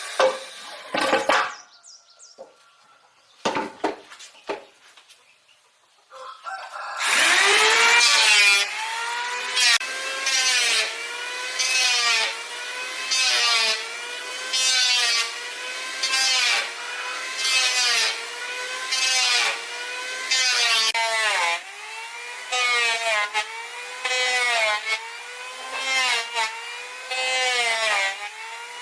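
A few knocks at the start, then a short pause, then a handsaw cutting through wood in steady strokes of about one a second. The blade rings on each stroke with a pitch that rises and falls.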